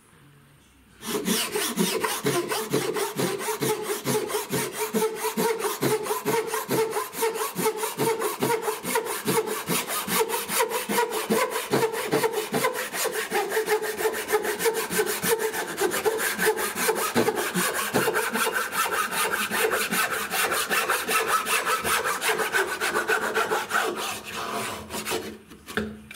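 Japanese pull saw crosscutting a board, fast, even full-length strokes rasping through the wood. The sawing starts about a second in and stops shortly before the end as the cut goes through.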